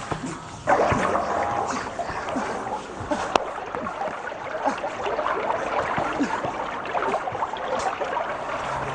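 Stage sound effect of running river water, a steady rush that starts abruptly just under a second in, played as the performers' boat capsizes.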